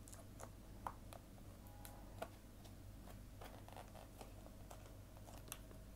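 Near silence with a few faint, light clicks and crinkles of a cardboard cake-box lid and its crimped foil tray edge being handled and lifted.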